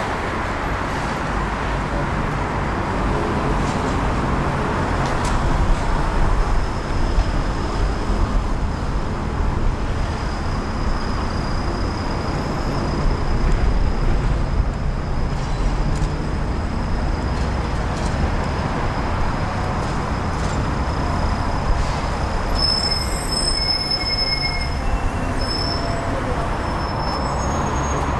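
City street traffic: a steady low rumble of passing vehicles, swelling as some go by. A thin high whine runs through, and short high-pitched squeals come in near the end.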